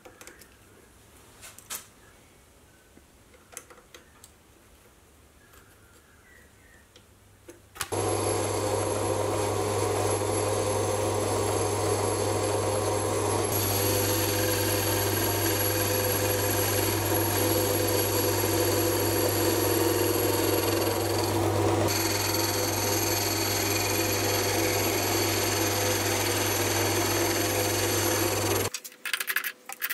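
A few faint clicks, then a Sieg C3 mini metal lathe starts abruptly and runs steadily for about twenty seconds while turning down a cast aluminium handwheel blank: a steady hum with higher whining tones that shift slightly twice. It cuts off abruptly near the end.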